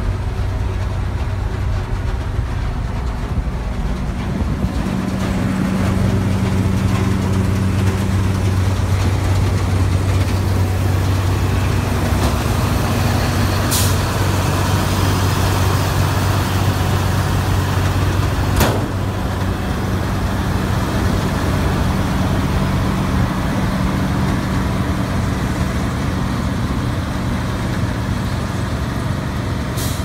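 New Holland TX68 combine harvester's diesel engine running steadily at idle, a low, even hum. Two brief sharp clicks stand out midway, about five seconds apart.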